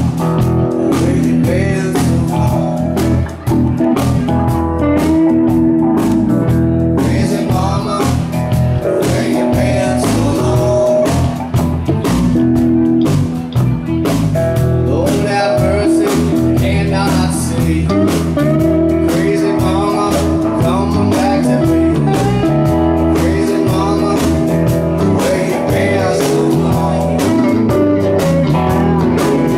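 Live band playing a blues-rock song, with electric and acoustic guitars and saxophone.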